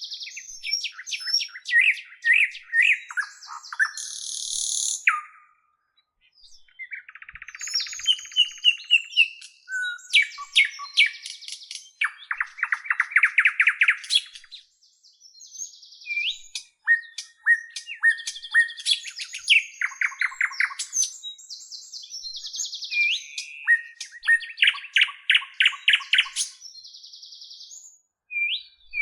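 A bird singing a long, varied song of chirps, fast trills, sweeping whistles and harsh rasping notes, in phrases broken by short pauses.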